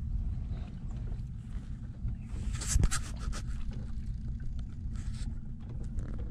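Low steady rumble of a small fishing boat under way, with a short burst of hiss and sharp clicks between about two and a half and three and a half seconds in.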